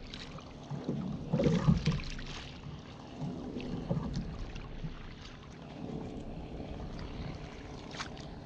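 A fishing kayak at sea while a hooked fish is being brought up: irregular knocks and handling noises against the hull over wind and water noise. The loudest cluster of knocks comes about a second and a half in.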